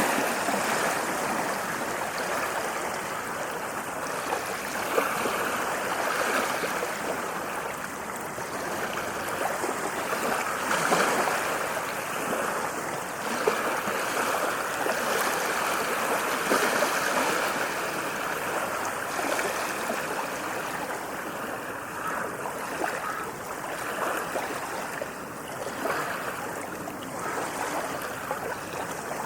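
Waves washing onto a sandy beach: a continuous rushing surf that swells and eases every few seconds.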